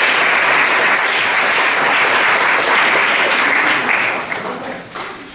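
Audience applauding, dense and steady, then dying away about four seconds in.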